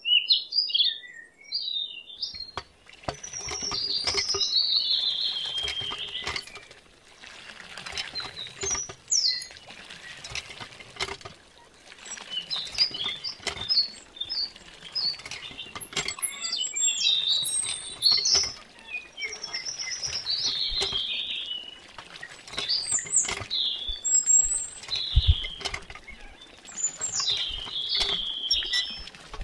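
Birds chirping over the splashing trickle of a thin stream of water poured from a miniature hand pump into a small pond, the water noise swelling and fading every few seconds.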